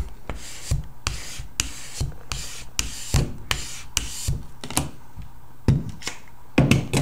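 A flat applicator tool rubbed hard back and forth over the paper back of a photograph on an acrylic block: a quick series of short scraping strokes, about two to three a second. The rubbing presses the photo onto the adhesive for full adhesion.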